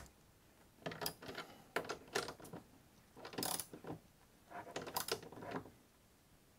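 Hand screwdriver tightening a short screw: about four short bursts of fast, faint clicking as the handle is turned.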